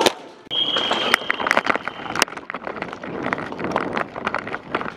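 Irregular sharp clicks and pops of airsoft guns firing around the field, with a steady high tone for a second and a half near the start.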